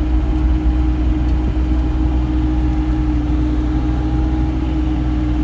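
Bobcat E35 mini excavator's diesel engine running steadily, a continuous low drone with a steady hum on top.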